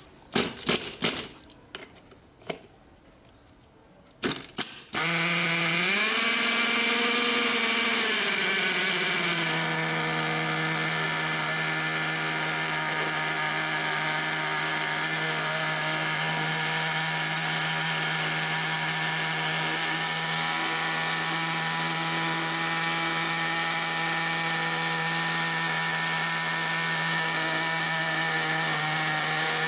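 Team Infinity nitro engine of an RC monster truck being pull-started: a few short strokes of the recoil starter, then about five seconds in the engine catches, revs up briefly and settles into a steady high-pitched idle.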